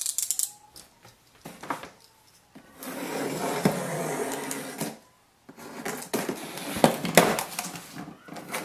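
A blade cutting along the taped top seam of a cardboard box, a steady scraping rasp for about two seconds, then the cardboard flaps being pulled open with crackling and a few sharp snaps.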